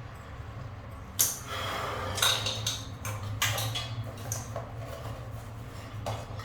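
Metal tools and bicycle parts clinking and rattling as they are handled, with one sharp click just over a second in. A steady low hum runs underneath.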